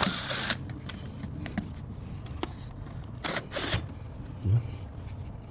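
Handling noise from a PVC window sash and its fittings: short scraping rustles at the start and twice about three seconds in, then a dull thump.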